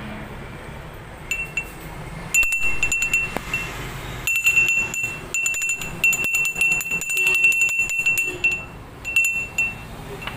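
A hand-held terracotta clay bell being shaken, its clapper striking quickly and repeatedly to give a bright, single-pitched ringing. A few short strikes come first, then steady ringing for several seconds, ending in a last short shake near the end.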